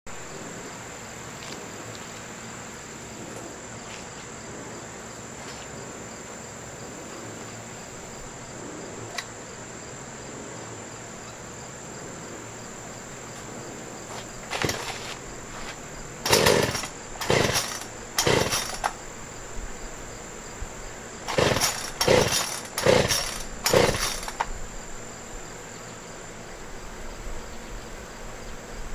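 Two-stroke Poulan P3314 chainsaw being pull-started: two sets of four short bursts, each about a second apart, the second set about halfway through. A steady high-pitched insect drone runs underneath.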